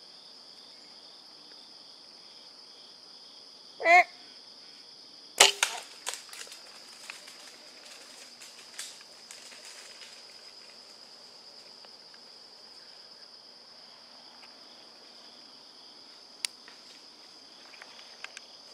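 Bowtech Carbon Rose compound bow shot at a deer: one loud sharp crack of the string's release a little over five seconds in, followed by a few seconds of scattered cracks and rustling in the brush. About a second before the shot there is a short pitched sound. Insects chirr steadily throughout.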